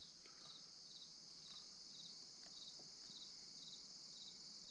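Faint crickets chirping: a steady high trill with evenly repeating chirps, otherwise near silence.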